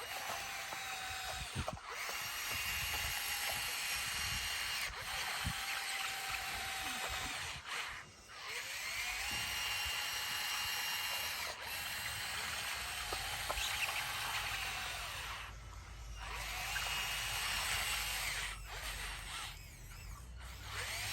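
Bulldozer working, its whine rising, holding for a couple of seconds and falling again about four times over a low rumble.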